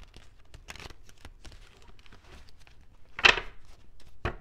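Tarot cards being handled and shuffled: scattered light clicks and rustles, with a louder burst of card noise about three seconds in and a sharp tap near the end.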